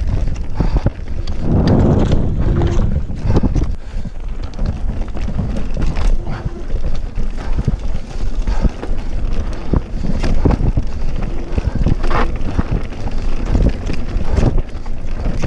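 Wind rushing over the camera microphone, with the tyre roar and frequent knocks and rattles of a Cube Stereo full-suspension mountain bike riding fast over a bumpy dirt trail.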